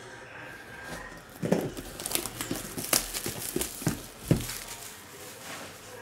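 Clear plastic wrapping crinkling and crackling as it is handled and pulled off a cardboard box, with a few sharper snaps between about one and a half and four and a half seconds in.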